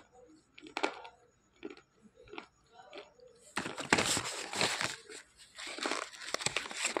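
Slate pencil being chewed with the mouth closed: scattered sharp crunches and clicks, then from about halfway through a dense, louder run of grinding crunches.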